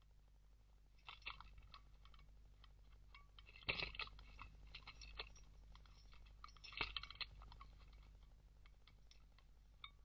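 Faint scratching and clicking from a badger pawing and clawing at a bird-feeding pole and its hanging feeder, with two louder crunchy rattles about four and seven seconds in.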